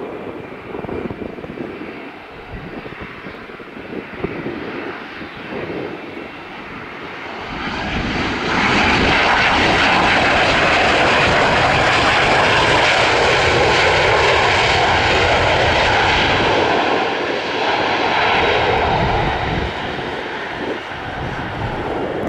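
Bombardier CRJ1000 regional jet landing, its two rear-mounted General Electric CF34 turbofans growing loud about eight seconds in and holding for about twelve seconds with a steady whine, then easing off.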